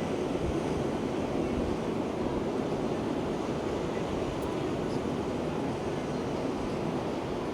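Steady rushing noise of ocean surf, with no breaks or distinct impacts.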